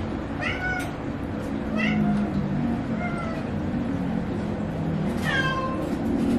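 Domestic cats meowing for wet food they are about to be given: four separate meows, each falling in pitch, with the longest and loudest about five seconds in.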